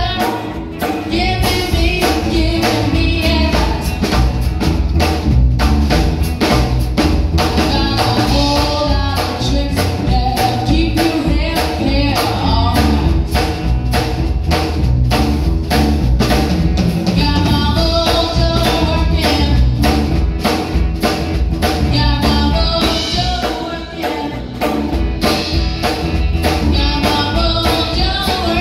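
Live blues band: a female lead singer over electric guitar, electric bass and a drum kit keeping a steady beat.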